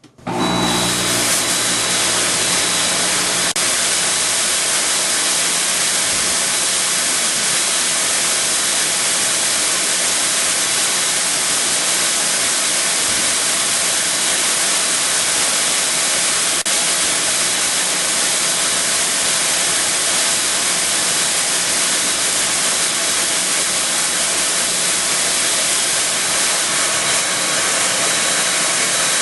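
FlashFog security fog generator discharging fog: a loud, steady rushing hiss that starts abruptly and holds without a break. A low hum underneath fades out after the first few seconds.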